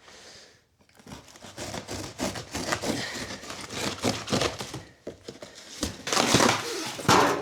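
A cardboard shipping box being cut and torn open, with crinkling packaging and knocks of handling. It starts about a second in and grows louder near the end.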